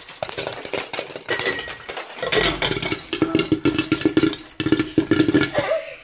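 Popcorn kernels popping in a covered pot: rapid, irregular pops and clinks against the pan and its glass lid. A steady humming tone joins about halfway through.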